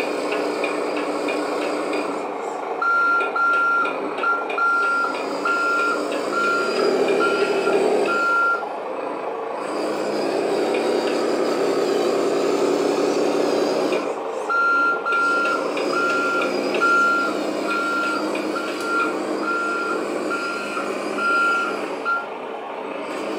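Sound module of a 1:14 scale Volvo FMX 6x6 RC dump truck playing a simulated diesel truck engine running, with a reversing beeper that sounds about one and a half times a second in two spells of roughly six and seven seconds.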